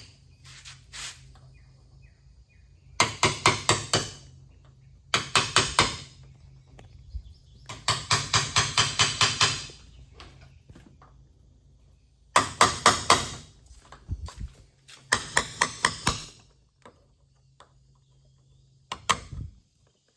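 Bursts of rapid sharp rattling strikes, about five or six a second, each burst lasting one to two seconds, repeated six times with pauses between.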